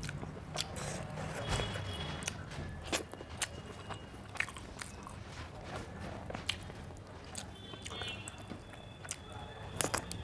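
Close-miked eating: a person chewing a meal of rice, dal and curry, with many short, sharp mouth clicks and smacks over a low steady hum.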